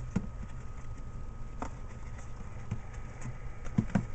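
Small parts and packaging of a flashlight kit being handled: scattered light clicks and knocks, the clearest a little over a second and a half in and twice near the end, over a steady low hum.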